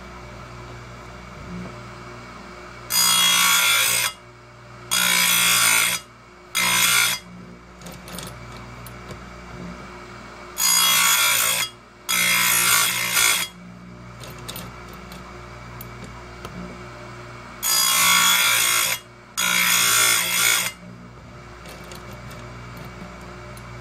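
Oregon 410-120 chain grinder sharpening the steel cutters of a chainsaw chain: the motor hums steadily while the wheel is brought down onto a tooth seven times, each grind about a second long, in groups of two or three with light clicks between as the chain is set for the next tooth.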